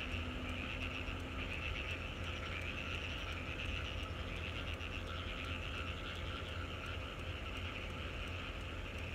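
A chorus of frogs calling steadily, a dense rapid trilling, over a low steady rumble.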